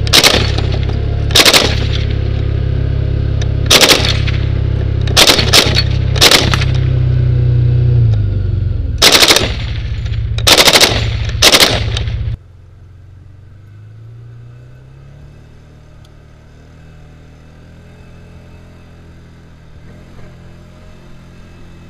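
M249 SAW, a 5.56 mm belt-fed light machine gun, firing about eight short bursts of automatic fire over some twelve seconds, over a steady low rumble. About twelve seconds in, the sound drops abruptly, leaving a quieter vehicle engine running.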